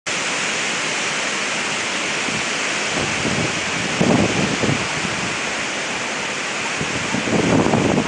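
Steady hiss of hurricane wind and rain, with gusts buffeting the microphone about four seconds in and again near the end.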